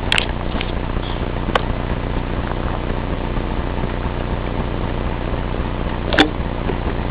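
Steady machine hum from the computer, with three short sharp clicks: one at the start, one about a second and a half in, and one about six seconds in.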